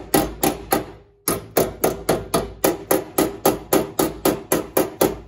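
Hammer rapping repeatedly on a sheet-steel firewall panel, about four blows a second with a short break about a second in, tapping the end of the panel into place for welding.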